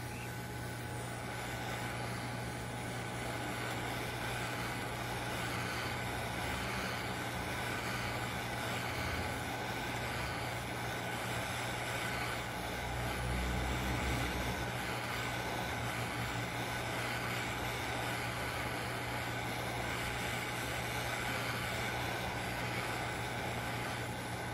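Handheld hot air gun running steadily, its fan blowing with a low hum and a thin steady tone, while it heats a video card's GPU chip to reflow the chip's solder, a fix for a card that gives no display.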